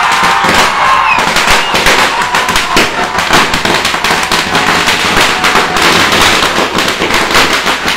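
A string of firecrackers going off: a loud, dense crackle of rapid small bangs, one after another without pause.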